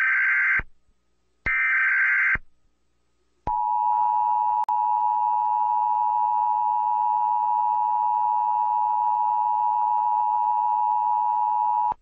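Emergency Alert System test tones. First come the last two of three short, screeching bursts of SAME digital header data. Then, about three and a half seconds in, the EAS two-tone attention signal (853 and 960 Hz together) starts and holds steady for about eight seconds, with one brief click a second after it begins.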